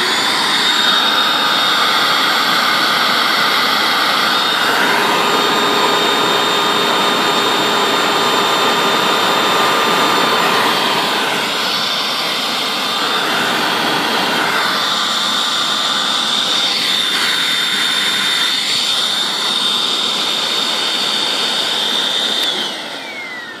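Hoover WindTunnel self-propelled upright vacuum cleaner running with a loud, steady high whine, then switched off near the end, the whine falling away as the motor spins down. Its motor is burned out, which the owner says leaves it with little suction.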